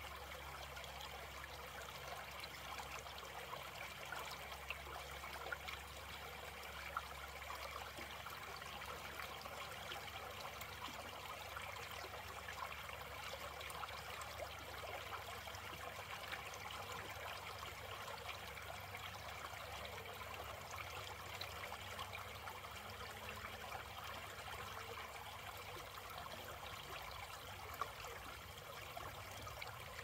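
Small shallow creek trickling over a low ledge: a steady babble of running water with many tiny splashes.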